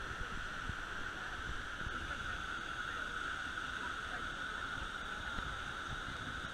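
Steady rushing hiss of a waterfall plunging off a sea cliff into the sea, heard from a boat close by.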